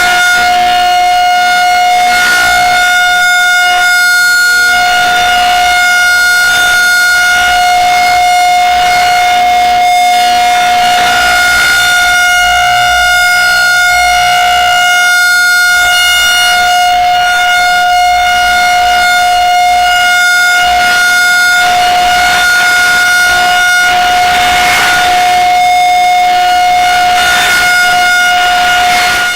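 Emergency Alert System (EAS) alarm tone, very loud: one harsh, buzzy tone held at a steady pitch without a break.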